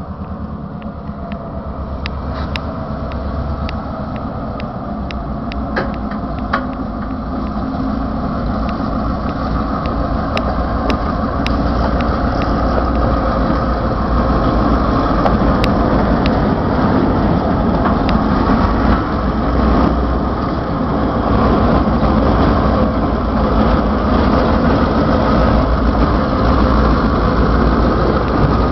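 Diesel-electric locomotive engines running as a pair of freight locomotives creep past, growing steadily louder as they come close. Scattered sharp clicks in the first dozen seconds.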